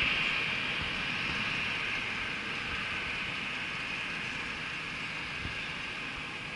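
Boeing 747's jet engines at takeoff thrust, heard from a distance: a steady rushing noise with a hiss on top that slowly fades as the airliner climbs away.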